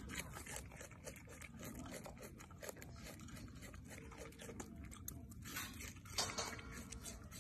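A macaque biting and chewing raw red onion: a run of small crunches and clicks, busiest about six seconds in.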